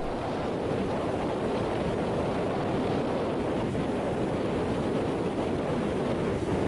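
Rough sea surf breaking and washing onto the shore, a steady rushing noise, with wind blowing across the microphone.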